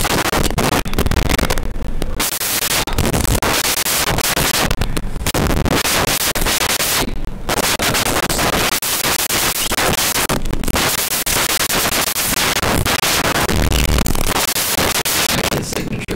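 Loud, dense crinkling and rustling of trading-card pack wrappers and cards handled right at the microphone, broken by a few brief pauses.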